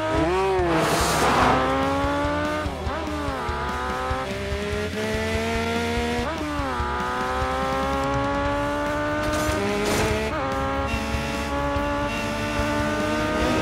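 Motorcycle engine accelerating hard through the gears: its pitch climbs steadily and drops sharply at each shift, several times over.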